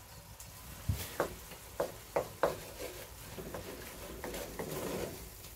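Wooden spatula knocking and scraping against the inside of a cast-iron Dutch oven as raw eggs are stirred into the chopped filling. There are several separate taps about a second in, then a run of quicker stirring and scraping near the end.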